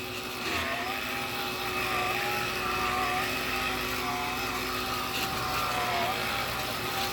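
Black & Decker cordless lithium pet vacuum running with its beater bar on, a steady motor hum and whine whose pitch wavers slightly as it is worked over the floor.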